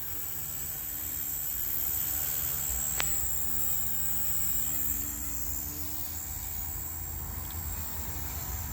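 Blade 150S collective-pitch RC helicopter in flight, its electric motors and rotors giving a steady high-pitched whine, with wind rumbling on the microphone. There is one sharp click about three seconds in.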